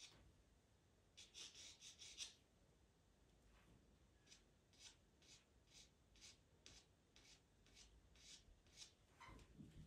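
Pastel pencil scratching in short strokes on pastel mat paper: a quick cluster of strokes a second or two in, then single light strokes about twice a second.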